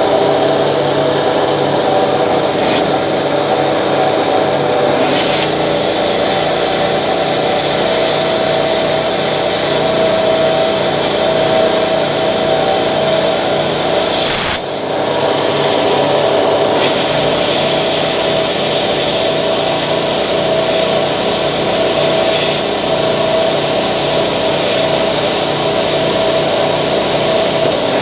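Plasma cutter cutting a hole through the steel wall of an oil tank: a loud, steady hiss and crackle over a steady hum. It cuts off briefly about halfway through, then starts again.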